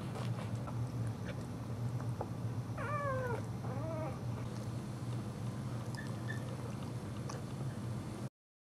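Two short whining cries from a Boxer dog, the first falling in pitch, over a steady low hum.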